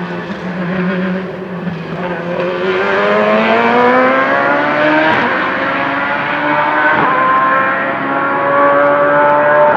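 Pescarolo 01 LMP1's Judd V8 accelerating hard, its pitch rising through the gears with quick upshifts about five and seven seconds in.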